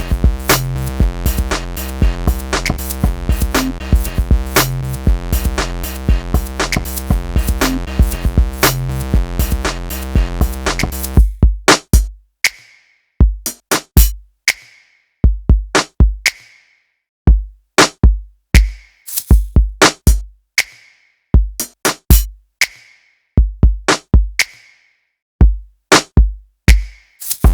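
Electronic music with a drum-machine beat. About eleven seconds in, everything but the drums drops out, leaving sparse, separate kick and snare hits with silent gaps between them.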